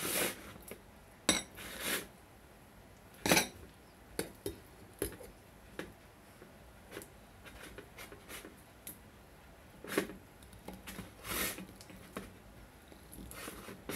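Irregular clinks and knocks of a plate being handled on a stainless steel kitchen counter, with several sharper knocks in the first few seconds and a few more later on.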